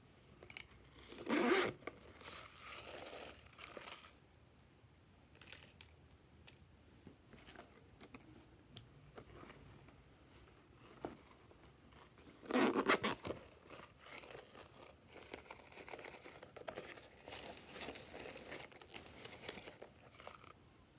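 Hands handling rubbery bear-shaped cases, with two loud, short scratchy rasps, about a second and a half in and again about twelve seconds later. Softer rustling sits between them, and light clicks and crackles come near the end.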